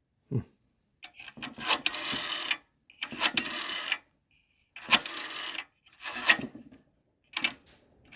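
Metal parts of a vintage 1963 payphone clanking and scraping as it is handled and moved, in about five short bursts with sharp clicks.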